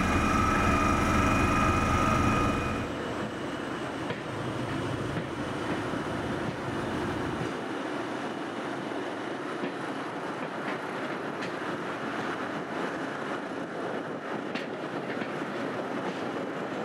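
A Class 73 electro-diesel's engine running hard, with a high whine that has just risen and holds steady. The sound cuts off about three seconds in. It is followed by passenger coaches rolling along the rails: a steady rumble with occasional wheel clicks over rail joints.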